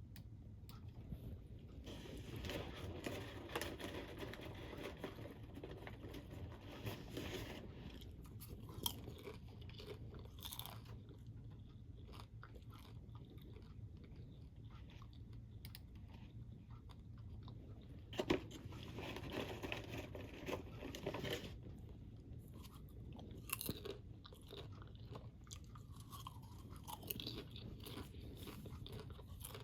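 Crunchy snack being chewed close to the microphone: two longer spells of dense crunching, with single crisp bites and crackles in between.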